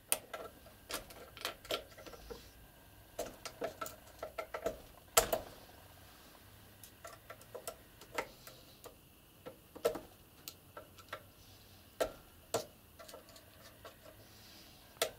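Small flat-head screwdriver clicking and scraping against the steel cocking pin and cap of a Stirling 14P .22 rifle bolt as it is pried at. Irregular light metal clicks, with a louder knock about five seconds in.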